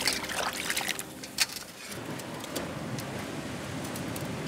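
Hands washing whole sardines in water in a steel basin: water sloshing and splashing against the fish and the metal, with a few sharp splashes or clicks, the loudest about a second and a half in.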